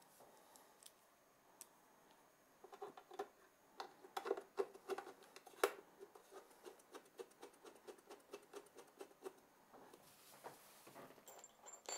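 Small hand screwdriver driving a screw into the case's inner panel: a faint run of quick small clicks and scrapes as the screw is turned, starting a few seconds in and stopping near the end, with one sharper click partway through.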